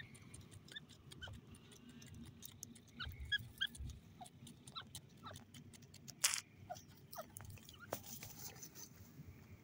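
Grey francolin dust-bathing in loose sand: faint scuffling of sand and feathers with scattered soft clicks, and a louder sudden rustle of wings and sand about six seconds in. Short faint chirps sound here and there.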